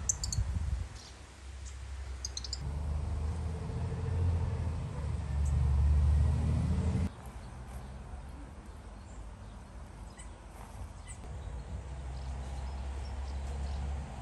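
Outdoor rumble, steady and low, with a few short high bird chirps in the first three seconds. The rumble swells towards the middle and changes abruptly about seven seconds in.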